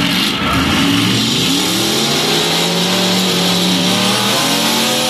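Demolition derby car engine revving hard: the pitch climbs, holds high for a couple of seconds, then drops back near the end.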